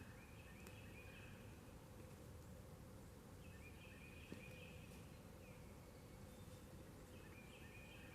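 Faint outdoor ambience with a bird singing a short phrase of quick stepped notes, heard three times at intervals of about three and a half seconds.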